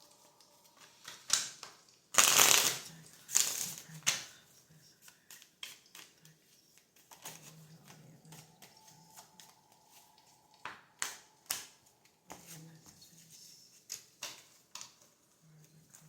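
Tarot cards being shuffled by hand: irregular soft slaps and rustles, with the loudest bursts about two and three and a half seconds in.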